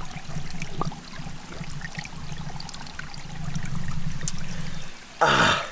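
Cold spring water trickling over mossy rocks close to the microphone as a man puts his mouth to it and drinks. Near the end comes a short, loud voiced gasp that falls in pitch.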